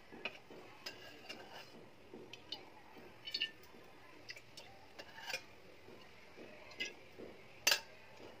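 Aluminium pot heating with a little oil on a gas burner, giving off scattered, irregular sharp ticks and small crackles, the loudest near the end.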